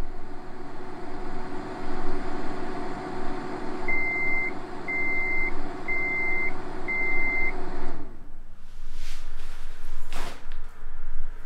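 Microwave oven running with a steady hum, then four beeps about one a second, the timer signalling the end of the cycle; the hum cuts off about eight seconds in. A soft thump and a few light knocks follow near the end.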